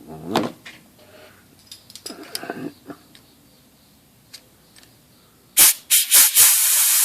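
Compressed-air blow gun: a few short spurts about five and a half seconds in, then a steady loud hiss of air, blowing solvent and old oil out through the IBM Selectric motor's bearings. Two softer sliding sounds come earlier.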